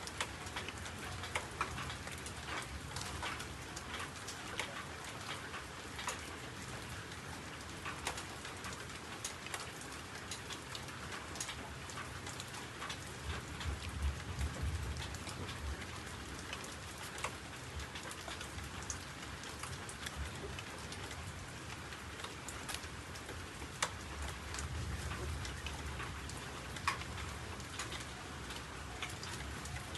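Steady patter of rain with many small drip ticks, and a low rumble swelling twice.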